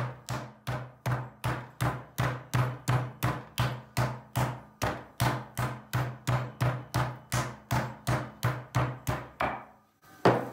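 Flat steel meat pounder slapping a raw chicken quarter on a wooden cutting board, about three even strikes a second, stopping near the end. The chicken is being flattened from the skin side.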